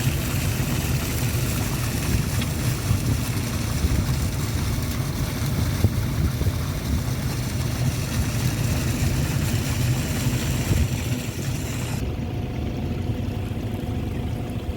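Steady rush of fast-flowing floodwater: a loud low rumble with hiss on top. About twelve seconds in, the high hiss drops away abruptly.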